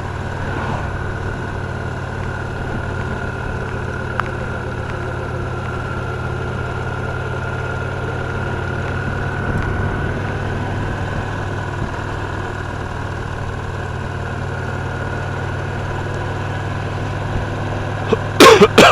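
Victory Cross Roads Classic LE motorcycle's 1700 cc V-twin engine running at a steady, even note. Near the end comes a brief, very loud burst.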